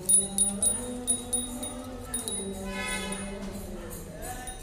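A small bell jingling in a quick series of shakes over soft background music.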